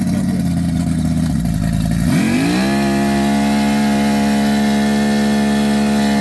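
Force 150 hp two-stroke outboard running under load on a water-brake dynamometer. About two seconds in it is throttled up, its pitch rising and then holding steady at a higher speed. It does not open up any further: it is down on power, making only about 115 to 120 horsepower.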